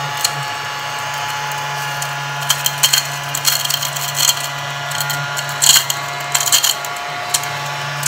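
Crumby battery-powered ladybug mini vacuum running with a steady whir that sounds like a hair dryer as it is pushed over a wooden table. Crumbs click and rattle as they are sucked in, in clusters from a couple of seconds in until near the end.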